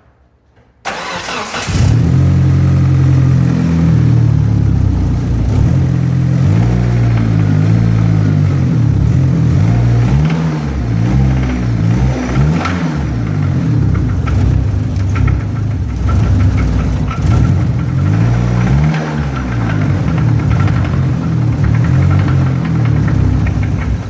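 Mitsubishi 4G63 inline-four engine cranked over and catching about a second in, then running steadily at idle. It is said to be knocking from a worn connecting-rod bearing (rod knock).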